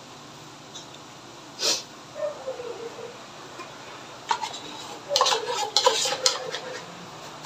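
A metal spoon scraping and clinking inside a tin can of condensed milk to get the last of the thick milk out. There are squeaky scrapes and clicks, mostly in the second half.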